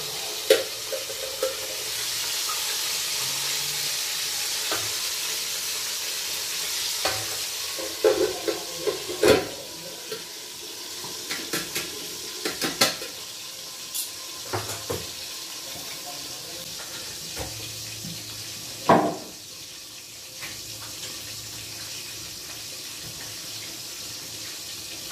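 Fish frying in hot oil in a lidded pan, a steady sizzle that is strongest in the first half and fainter later. Sharp metal clinks of tongs and a spoon against the pan and a steel bowl come now and then, the loudest about three-quarters of the way through.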